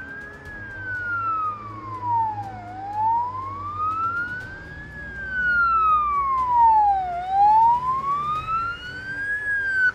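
Police van siren wailing: one tone sliding slowly up and down, each rise and fall taking about four and a half seconds, growing louder in the second half as the van approaches.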